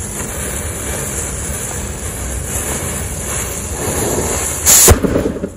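A chain of matchsticks flaring and burning with a steady fizzing hiss, then a firecracker goes off with one loud bang near the end, followed by a short crackle.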